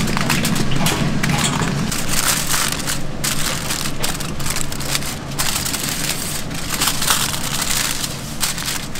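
Aluminium foil crinkling and crackling as gloved hands fold it up and over a takeout box of fried chicken.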